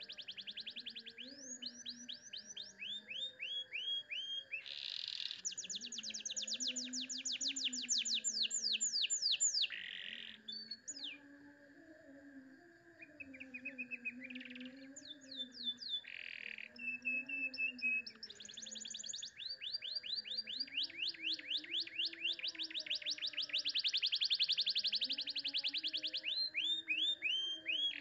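Domestic canary singing: long, rapid trills of fast repeated high notes, run into one another with short breaks and a quieter stretch about halfway through.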